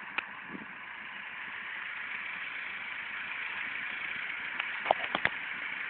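Tractor engines running steadily, heard as an even mechanical hum, with a few sharp clicks near the end.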